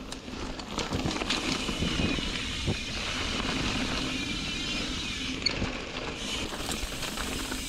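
Ibis Ripmo v2 mountain bike riding fast down rocky dirt singletrack: a continuous rumble of tyres rolling over dirt and loose stones, with scattered sharp knocks and rattles of the bike over rocks, one louder clack about five and a half seconds in.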